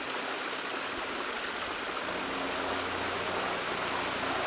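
Steady, even rushing noise with no distinct events. A faint low hum joins it about a second and a half in.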